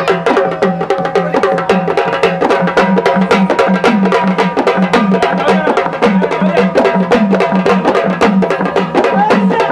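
Devotional music: fast, even drumming on hand drums, many strokes a second, with a singing voice or melody line gliding over it.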